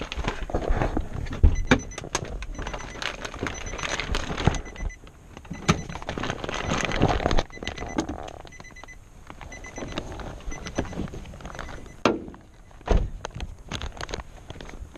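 A run of clunks, clicks and rattles, like a door and keys being handled, with a faint high repeating electronic beep in parts.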